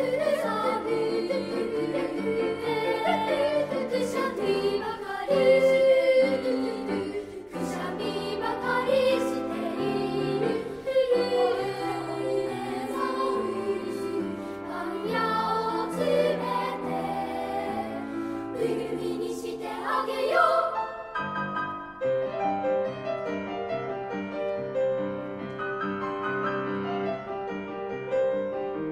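Children's choir singing in several parts with piano accompaniment. Just before two-thirds of the way through, the voices sweep upward and stop, and the piano plays on alone.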